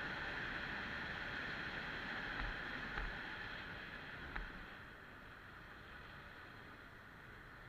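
Steady rushing riding noise from a motorcycle in motion, wind and road, with a few brief knocks around the middle; it gets quieter about five seconds in.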